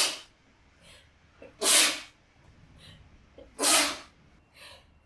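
A woman sneezing in a fit of wet, spraying sneezes: two full sneezes about two seconds apart, each after a short quick intake of breath, with the end of a previous sneeze at the very start.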